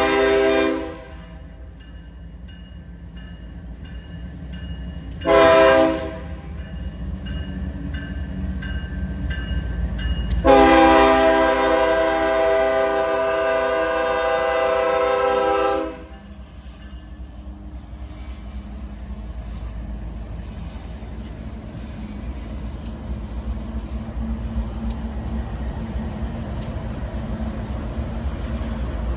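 Diesel locomotive air horn on an approaching BNSF coal train: a blast ending just after the start, a short blast about five seconds in, then a long blast of about five seconds, the short-long close of a grade-crossing signal. Between and after the blasts the train's low rumble grows steadily louder as it nears.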